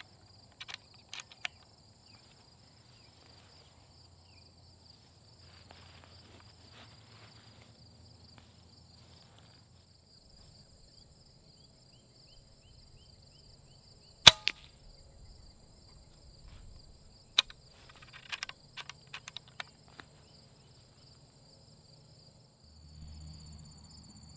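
A .25-calibre Hatsan FlashPup PCP air rifle fires once, a single sharp crack a little past the middle, with smaller mechanical clicks of the rifle being handled and cycled near the start and a few seconds after the shot. Insects trill steadily throughout.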